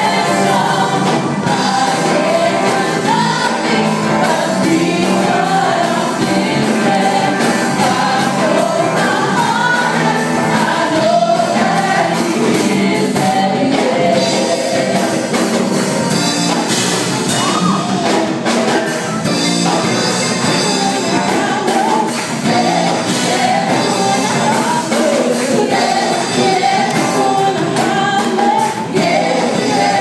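A worship team of several women singing a gospel song together into microphones, backed by a live band with electric guitars.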